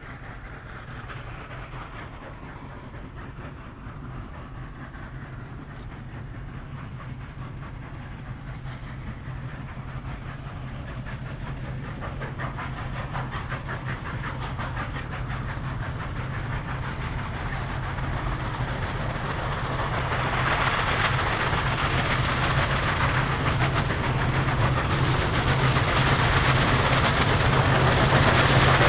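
Union Pacific 4014 'Big Boy' 4-8-8-4 articulated steam locomotive and its train approaching, with a steady rumble and hiss that grows steadily louder, becoming much fuller from about two-thirds of the way through.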